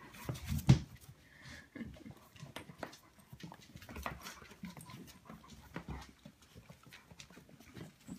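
Four-week-old whippet puppies' claws clicking and scrabbling irregularly on a tiled floor as they scuffle around a large dog, with a louder thump a little under a second in.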